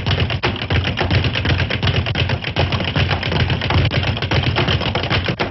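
Cartoon sound effect of rapid-fire boxing punches from a champion rooster: a fast, unbroken rattle of blows.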